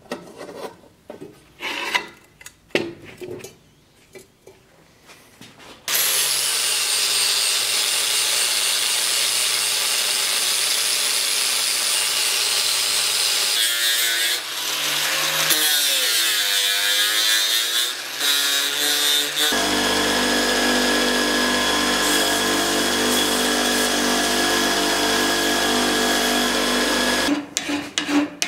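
Angle grinder grinding steel, starting suddenly about six seconds in and running loud and steady for some twenty seconds, its pitch sagging and recovering midway as the disc is loaded, then settling into a steadier tone. Before it come a few irregular scrapes and knocks; near the end it stops and quick rasping strokes of a hand file on steel begin.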